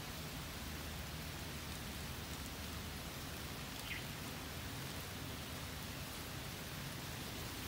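Water leaking from pinholes in a water-filled plastic bag and pattering steadily onto the grass and dry leaves below, like light rain. One small tick about four seconds in.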